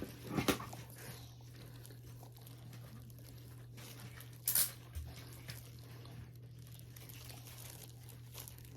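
Quiet eating sounds: chewing with scattered crinkles and small clicks, and one louder crunch or rustle about four and a half seconds in, over a steady low hum.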